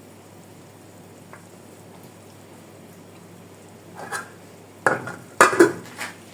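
A utensil stirring and clattering against a cooking pot, a quick cluster of knocks near the end.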